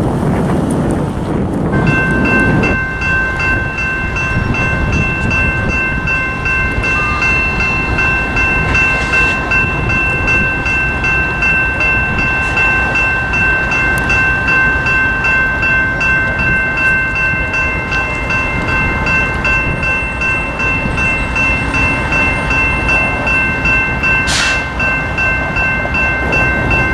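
Railroad grade-crossing warning bell ringing continuously with the gates down. It starts about two seconds in, sounding a cluster of ringing bell tones with rapid repeated strikes, over a low rumble.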